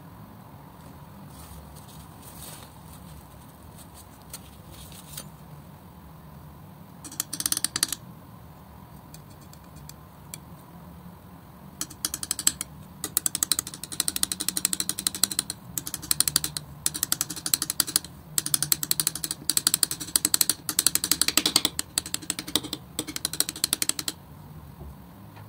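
Metal palette knife mixing thick acrylic paint on a flat surface: rapid clicking and scraping strokes. A short burst comes about seven seconds in, then steady fast mixing from about halfway until near the end.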